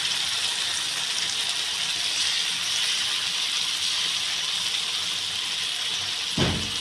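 Julienned carrots and bell pepper in tomato sauce sizzling in a hot wok: a steady, even hiss. A single short knock comes about six seconds in.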